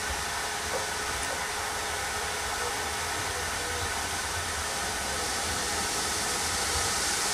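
Steam tank locomotive approaching: a steady hiss with a low rumble underneath, growing slightly louder toward the end.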